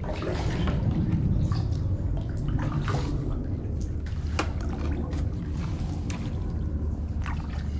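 Kayak paddle strokes in calm water: splashes and drips from the blades at irregular intervals over a steady low rumble.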